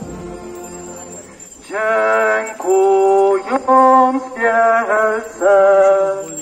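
A slow church hymn sung by one voice and played through horn loudspeakers, with long held notes. The singing grows loud about a second and a half in, after a quieter stretch.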